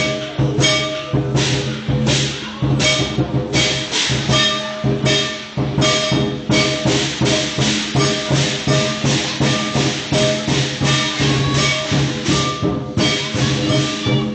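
Lion dance percussion: a drum and clashing cymbals beating a loud, driving rhythm that quickens about six seconds in, with ringing tones sustained underneath.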